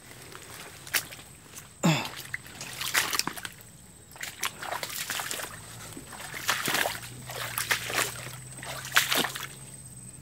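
Footsteps wading through shallow floodwater and mud in boots: irregular splashing and sloshing, with a sharper splash about two seconds in.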